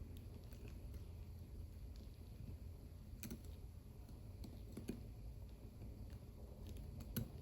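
Faint, scattered light clicks of small metal watchmaking tools against a watch movement as a bridge is worked loose, over a low steady room hum.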